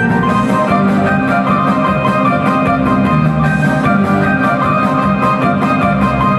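Balkan folk dance music for a circle dance, with a fast, steady beat.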